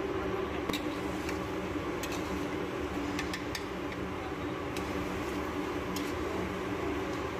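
A metal slotted spatula clinks and scrapes against a large steel cooking pot as mutton pieces are stirred, giving about ten scattered sharp clicks over a steady kitchen hum.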